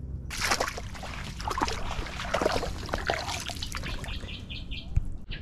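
Shallow water splashing and trickling as a cod is put back into the river, in irregular bursts, with a bird chirping a few times near the end.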